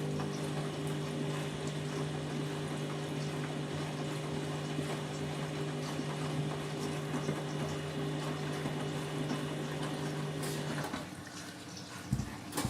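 Candy washing machine filling with water: water rushing into the drum over a steady hum from the fill valve. The hum cuts off about eleven seconds in as the filling stops, and a short knock follows near the end.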